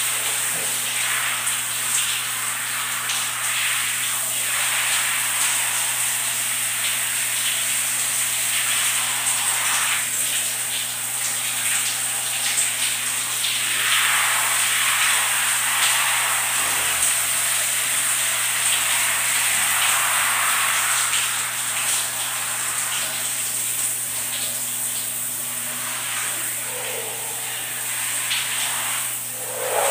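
Shower spray running onto a person's head and body in a small tiled bathroom: a steady hiss of falling water that swells and changes as it splashes over hair, face and hands.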